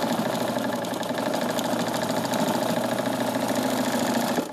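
Vintage Nelco sewing machine running at a steady speed, its electric motor humming under the fast, even clatter of the needle as cloth is fed through. It stops right at the end.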